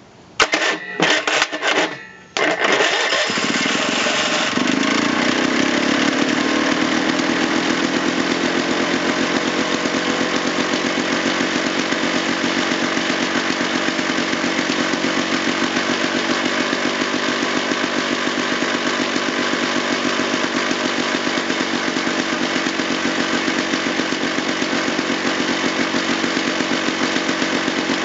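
Rockwell JLO L380 single-cylinder two-stroke engine starting: a few short firing bursts, then it catches about two and a half seconds in, its pitch settling within a couple of seconds to a steady running note.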